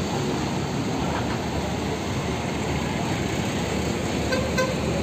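A large bus engine idling steadily, a low even hum under terminal noise.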